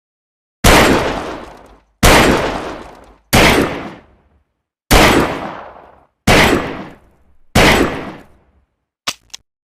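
Six revolver shots fired one after another, about one every second and a half, each with a long echoing tail that dies away before the next. Two short clicks follow near the end.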